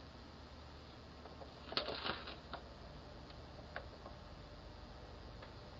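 Faint steady hiss with a quick cluster of small clicks and rustles about two seconds in, and one more click near four seconds.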